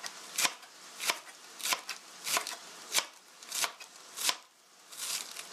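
Kitchen knife slicing cabbage into thin shreds on a plastic cutting board, the blade knocking the board at a steady pace of about three strokes every two seconds.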